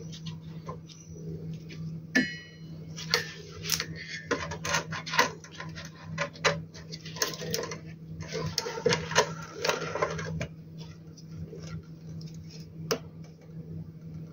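Irregular small clicks, taps and rattles of cable connectors and plastic parts being handled and pressed onto an inverter circuit board, with a denser burst of clatter about two thirds of the way through, over a steady low hum.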